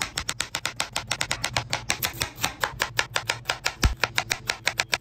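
Chef's knife rapidly slicing zucchini and then a shallot on a cutting board, the blade tapping the board about six or seven times a second, with one heavier thump about four seconds in.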